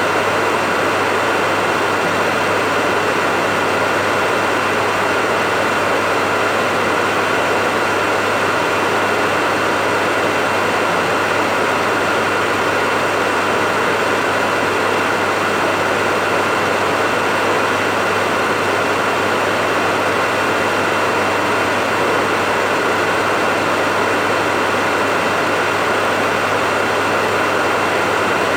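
Hair dryer running steadily: an even rush of blown air with a low motor hum and a thin, unchanging whine.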